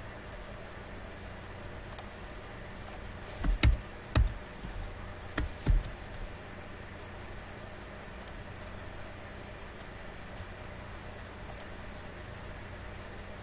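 Scattered clicks of a computer mouse and keyboard at a desk, with a few louder, deeper thuds around four and six seconds in.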